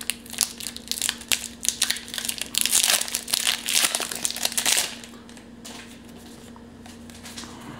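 Foil wrapper of a Pokémon trading-card booster pack crinkling and tearing as it is ripped open by hand. The crackling is loudest just before it stops, about five seconds in, over a faint steady hum.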